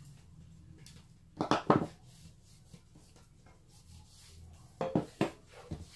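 Hands working a resin figurine and craft tools on a wooden tabletop, with pliers set down among them. There is a cluster of knocks about a second and a half in and another near five seconds, with light rubbing between.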